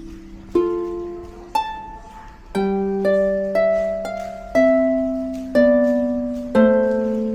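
Background music: a slow plucked-string melody, notes or chords struck about once a second and left to ring out.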